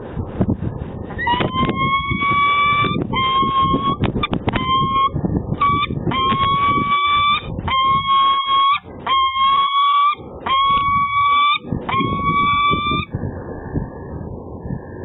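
Peregrine falcon calling at the nest ledge: a series of about nine long calls, roughly one a second, each rising slightly in pitch, over a low rumble.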